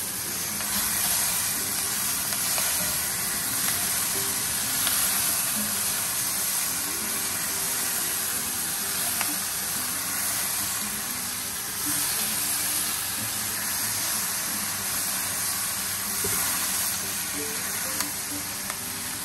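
Beef chunks, bell peppers, carrots and onions sizzling steadily in oil in a hot cast iron Dutch oven, with a few light clicks of metal tongs as the pieces are tossed.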